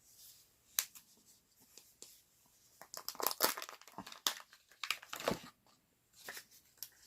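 Foil wrapper of a Kinder Joy egg being torn open and crinkled in the hands: quiet, irregular crackling and tearing, busiest in the middle, with short pauses between.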